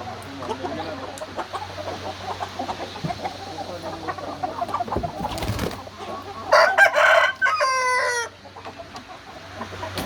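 Chickens clucking, and about six and a half seconds in a rooster crows once, loudly, for about two seconds.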